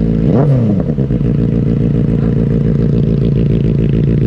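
Benelli 600i's inline-four engine given a quick blip of the throttle about half a second in, then settling to a steady idle with an even pulse.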